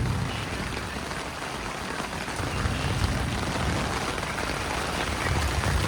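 Heavy rain drumming hard on a tent, a steady hiss with low rumbling swells that come and go three times.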